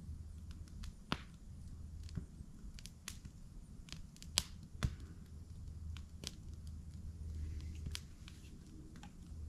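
Wood campfire crackling, with irregular sharp pops over a low steady rumble; the loudest pops come a little after the middle.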